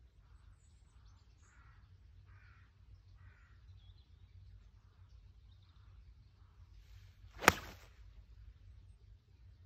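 A golf iron swung and striking the ball: a short swish of the club, then one sharp click at impact about seven and a half seconds in. The ball is struck cleanly.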